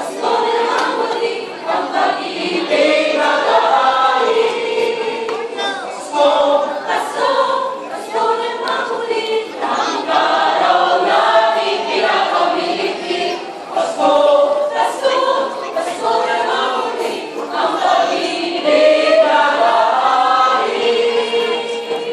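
A mixed choir of men's and women's voices singing in parts, in phrases with short pauses between them.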